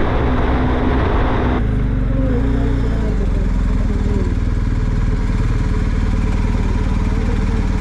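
BMW R 1250 GS boxer-twin engine running steadily at low speed as the motorcycle rolls slowly toward a stop. Background music cuts off about a second and a half in.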